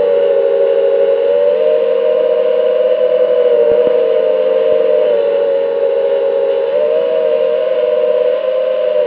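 FPV quadcopter's brushless motors whining steadily in flight, several close tones together whose pitch dips and rises slightly as the throttle changes.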